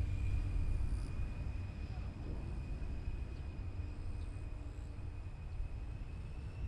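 Regional airliner's engines running: a low rumble under a steady high whine that slowly rises in pitch.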